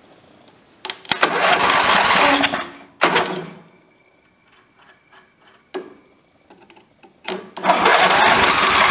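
Lawn tractor engine, flooded after fuel was poured into the carburettor, cranked on its starter in two bursts. Near the end it cranks again, fires and keeps running.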